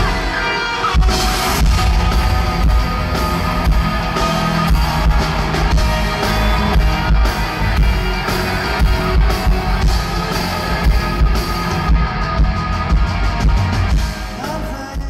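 Live rock band playing, led by electric guitar over drums, as recorded from the audience. The music dies away near the end.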